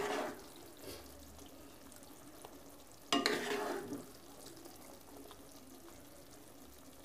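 Cooked beef liver being served with a spatula from a non-stick wok into a glass bowl: two short bouts of scraping and stirring noise, one at the start and one about three seconds in. The hot pan sizzles faintly between them.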